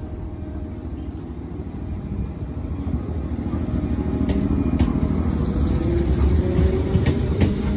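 A 205 series electric train pulls away from the platform and picks up speed. The rumble of its motors and wheels grows louder, a hum rises in pitch near the end, and sharp clicks come from the wheels over rail joints as the cars pass.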